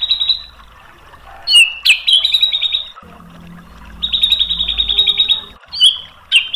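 White-rumped shama (murai batu) singing: fast trills of rapidly repeated high notes broken by short pauses, with a sharp upswept note before each new trill.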